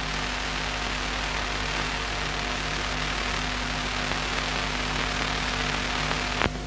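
Steady hiss with a low hum and a few faint steady tones underneath, with no distinct event; a brief click comes near the end.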